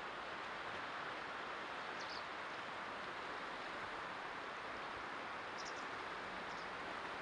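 Steady rush of a swollen, fast-flowing river. A few brief high bird chirps come about two seconds in and again near the end.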